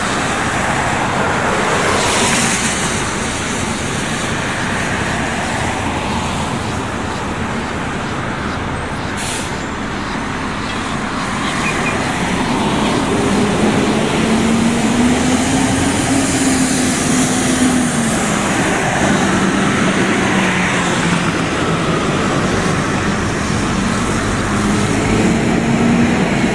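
City transit buses running and pulling out, with a steady wash of engine and road noise. There is a short burst of hiss about nine seconds in, and from about halfway a humming tone that rises and falls as a bus moves off.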